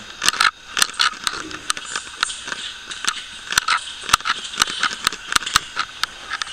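Irregular sharp clicks and cracks, about three a second, over a faint hiss.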